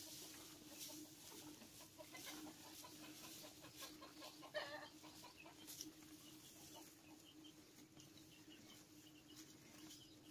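Faint crunching and rustling of cattle chewing dry straw, with a brief chicken cluck about halfway through, over a steady low hum.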